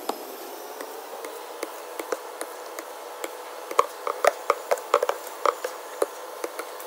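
Metal punch-down tool pushed through the cap of fermenting red grape skins: wet squishing with many small crackling pops, busiest about four to five and a half seconds in, as the cap is broken and trapped CO2 let out, over a faint steady hum.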